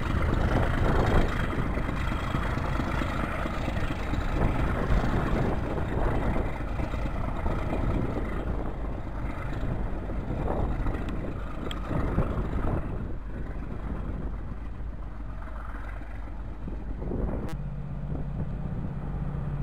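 Diesel locomotive hauling coaches away, its low engine rumble slowly fading with distance, with wind on the microphone. About three-quarters of the way through, a cut brings in a steady low engine hum from a distant approaching diesel train.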